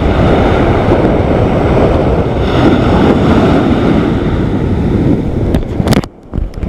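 Wind buffeting the microphone over breaking surf, a loud steady rumble. It cuts out abruptly about six seconds in, followed by a few sharp handling clicks.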